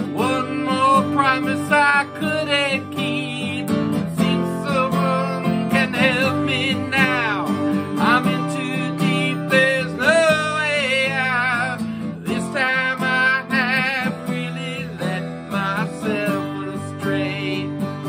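A man singing with a strummed acoustic guitar, holding and wavering long notes, with a vibrato-rich held note about ten seconds in.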